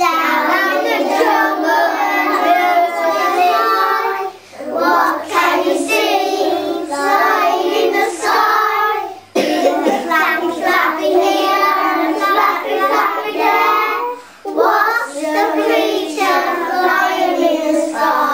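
Young children singing a song, in phrases broken by short pauses about every five seconds.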